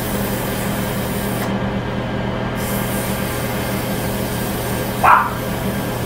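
Wood lathe running steadily while a pen blank is sanded on it, with a single short dog bark about five seconds in.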